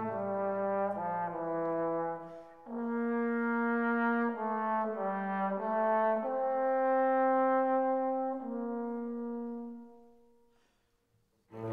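Background music: a slow melody of long held notes that fades out near the end.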